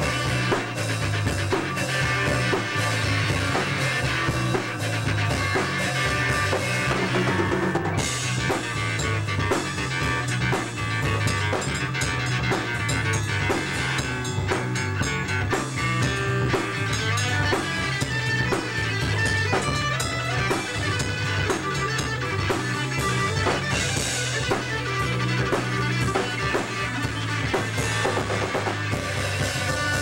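Live band playing an instrumental rock jam, led by a drum kit with kick and snare, with acoustic guitar and keyboard.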